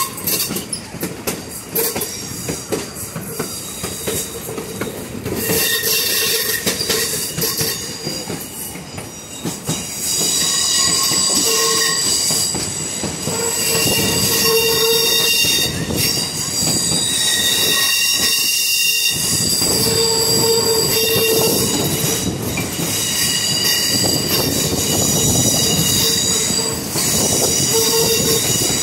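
Railroad cars rolling along the track, heard from an open gondola car, with wheels squealing against the rails in high tones that come and go. There are some clicks from the wheels early on, and it grows louder about a third of the way in.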